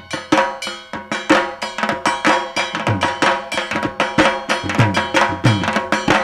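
Dhak, the Bengali barrel drum played for Durga Puja, beaten with sticks in a fast, dense rhythm. A steady ringing tone runs under the strokes. The drumming drops in level at the start and builds back up within about a second.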